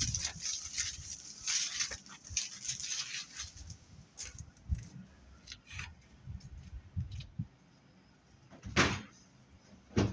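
Scrap BX armoured cable and debris being handled and tossed aside: rustling and clattering for the first few seconds, then scattered light knocks and a louder thump near the end.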